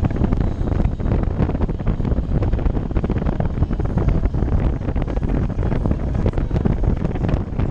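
Wind buffeting the microphone of a camera on a moving motorcycle: a dense low rumble that swells and dips rapidly.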